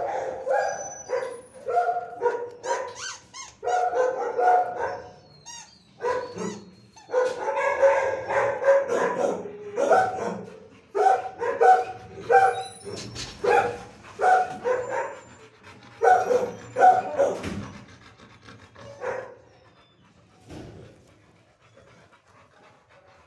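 Dogs barking in a shelter kennel block, bark after bark in quick bursts, dying away over the last few seconds.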